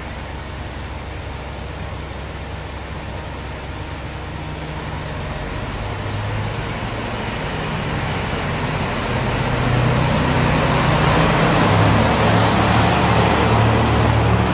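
Single-car diesel railcar drawing up and passing at close range. Its engine and wheel noise grow steadily louder over the first ten seconds or so, then stay loud as it goes by.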